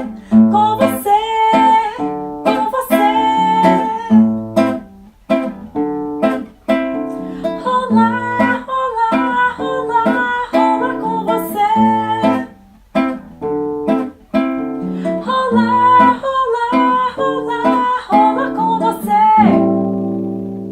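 Acoustic guitar strummed in a steady rhythm as a closing instrumental passage, ending on a final chord about a second before the end that rings out and fades.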